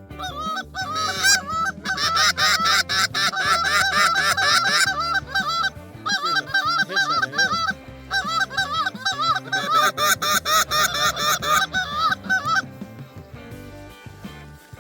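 A flock of geese honking, many calls overlapping in quick succession, tailing off about twelve and a half seconds in.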